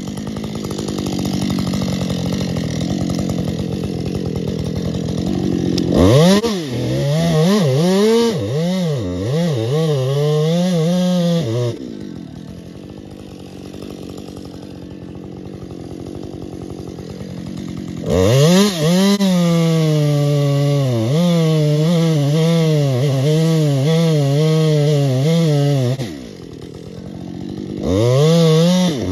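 Husqvarna two-stroke chainsaw cutting the directional notch in a large spruce. It runs at high revs through the cut, drops back to a slower, quieter run for several seconds in the middle, then revs up again, with a brief dip and rise near the end.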